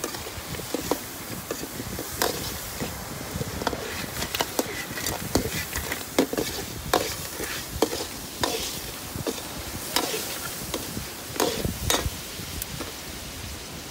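Metal ladle scraping and clinking against a steel wok as crab pieces are stir-fried in salt and chili, in irregular strokes about one or two a second, over the sizzle of the frying.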